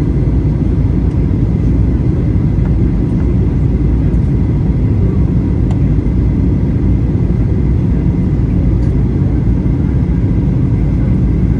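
Boeing 737-800 passenger cabin noise in flight: a steady low rumble from the CFM56-7B engines and airflow, with faint steady tones above it.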